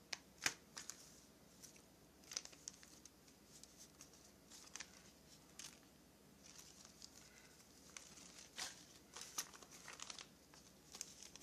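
Faint crinkling of small clear plastic screw packets being shuffled through by hand, in scattered short rustles and crackles.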